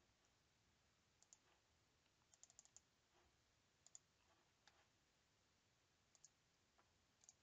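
Near silence with faint, scattered clicks of a computer mouse and keyboard: a few single clicks and a quick run of them about two and a half seconds in.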